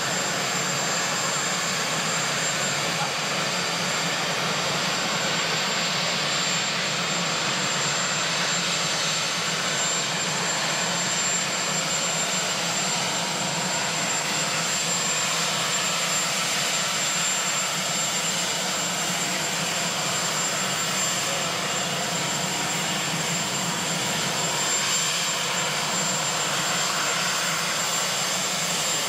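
Marine One, a Sikorsky VH-3D Sea King helicopter, with its turbine engines running: a steady rushing noise with a thin, high whine held on top.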